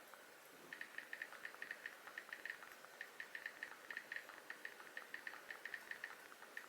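Faint, quick runs of light clicks from typing on a phone's touchscreen keyboard, several taps a second with short pauses between bursts.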